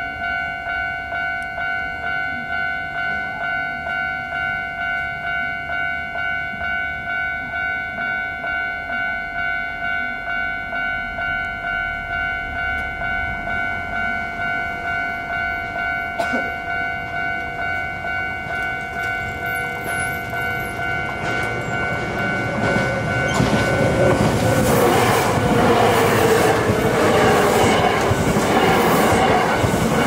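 Japanese railway crossing bell ringing in a steady, evenly pulsed kan-kan. About two-thirds of the way in, a Hankyu Railway train approaches and passes over the crossing, and the rumble and wheel clatter grow loud and cover the bell.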